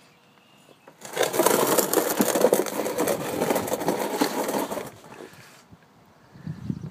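A rough scraping and rustling noise that starts about a second in, lasts about four seconds and fades away.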